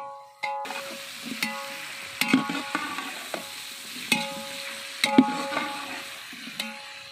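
Sliced onions and green chillies sizzling in oil in a large metal pot. A steel ladle stirs them, scraping and knocking against the pot several times.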